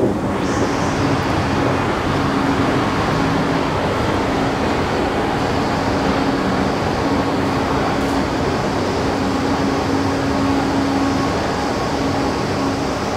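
Long metro-station escalator running, a steady mechanical rumble with a low hum over the station's ventilation noise.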